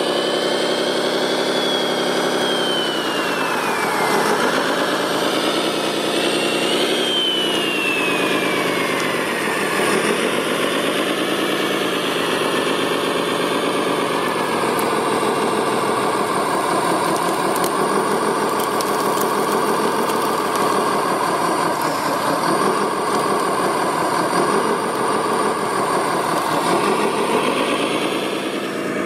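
Radio-controlled scale wheel loader and articulated dump truck models running with a steady engine-like hum that rises and falls. A high whine of the drive and hydraulic motors falls in pitch twice in the first ten seconds.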